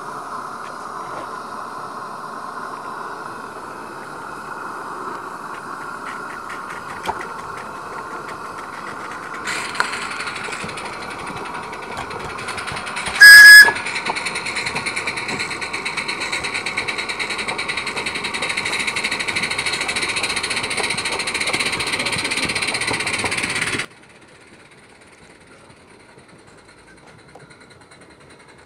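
Live-steam garden-railway model locomotive running with a steady hiss of steam, which grows louder about ten seconds in, and one short, very loud steam whistle blast a few seconds later. Near the end the steam sound stops suddenly, leaving only a faint background.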